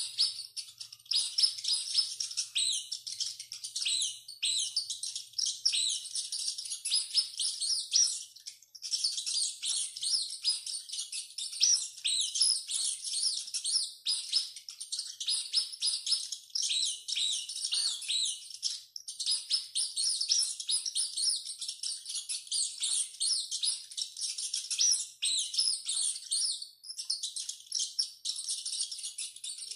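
Rats squeaking in a rapid, continuous stream of high-pitched squeaks and chirps, broken by a few very short gaps.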